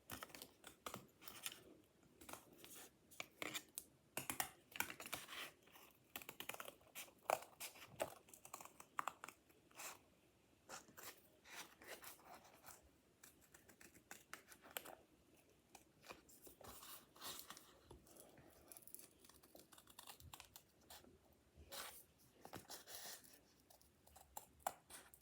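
Paper and cardboard craft work close to the microphone: scattered, uneven rustling, tearing and snipping sounds.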